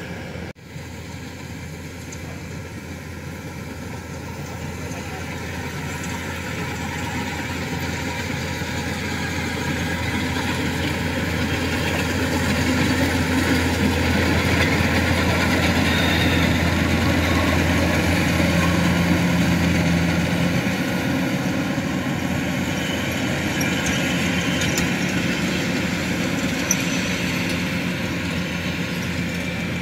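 Kubota DC105 rice combine harvester's diesel engine running steadily under load as it cuts and threshes, growing louder as the machine comes close, loudest around the middle, then easing off a little.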